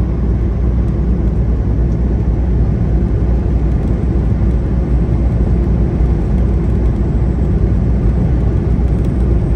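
Semi-truck on the road: steady low engine and road rumble while driving.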